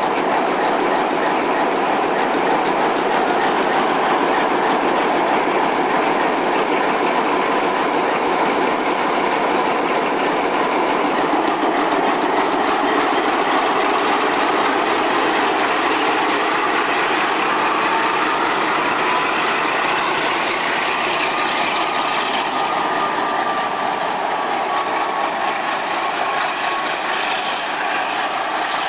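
Pielstick diesel engine of an OSE A.351-class Alsthom diesel-electric locomotive running steadily as the locomotive moves slowly past at close range. About two-thirds of the way through, a thin whine rises a little in pitch.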